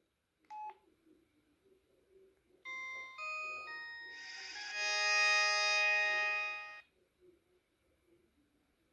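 A short electronic beep, then the Samsung Snap flip phone's power-on jingle. A few stepped electronic notes lead into a swelling sustained chord that cuts off suddenly about four seconds after the tune begins.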